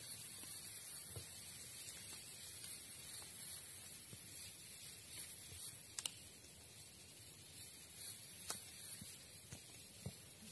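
Nylon sleeping bag and its stuff sack rustling and crinkling as they are handled, with a few sharp clicks, the clearest about six and eight and a half seconds in. A steady high-pitched hiss runs underneath.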